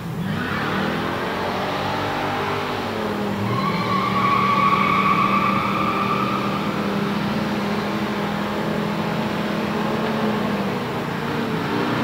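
Big-block V8s of a Dodge Super Bee and a 1969 Camaro SS 396 doing burnouts. The engines rev up near the start and again about three seconds in, then hold at high revs, with the rear tyres squealing from about four to seven seconds in.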